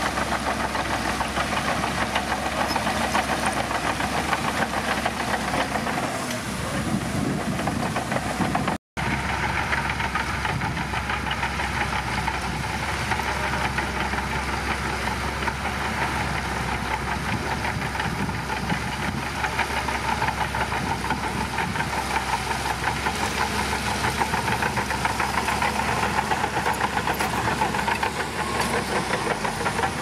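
Shantui crawler bulldozer's diesel engine running steadily with a fast, even clatter as it pushes a pile of gravel. The sound cuts out for a moment about nine seconds in.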